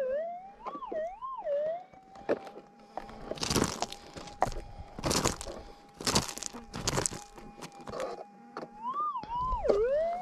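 Minelab GPX 6000 gold detector's steady threshold hum, which warbles up and down in pitch near the start and again near the end as the coil is swept. Several short, louder bursts of noise come in between.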